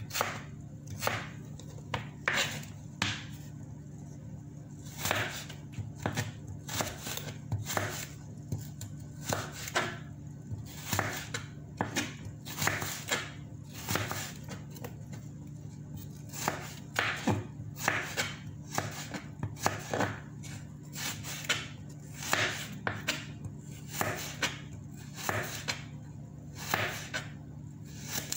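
Chef's knife slicing raw carrot into sticks on a cutting board: a crisp crunch and knock of the blade on the board with each cut, in an irregular run of about one or two cuts a second with a few brief pauses.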